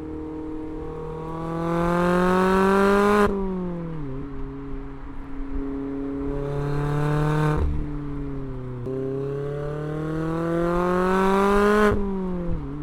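Mazda MX-5 ND2's 2.0-litre four-cylinder through a Goodwin Racing RoadsterSport Race exhaust, accelerating hard three times. Each time it climbs in pitch, then the revs fall off sharply.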